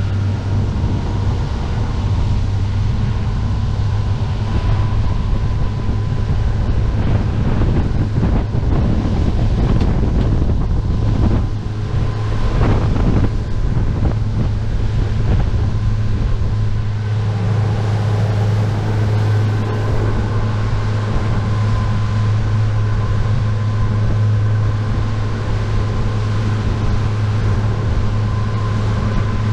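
A boat's engine running steadily at a constant speed, a low even drone, with wind buffeting the microphone.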